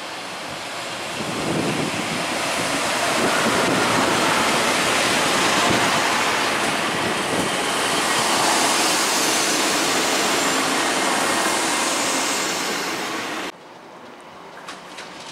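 Passenger multiple-unit train running close past along the platform, a loud rushing and rumbling of wheels and running gear that builds over the first few seconds. It cuts off sharply near the end to a much quieter rumble of another train approaching in the distance.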